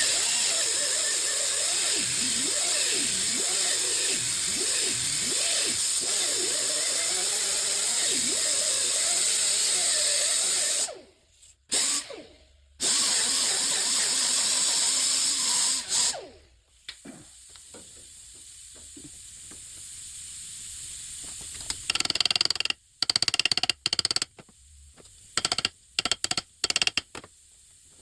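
A shop power tool running in two long loud runs with a wavering pitch, stopping twice, followed by a quieter hiss and a string of short bursts near the end.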